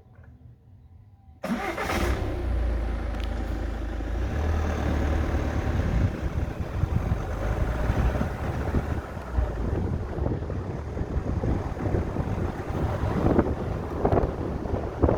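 Ford Mondeo Mk5 2.0-litre diesel engine, silent for about a second and a half, then restarting abruptly and running steadily at idle.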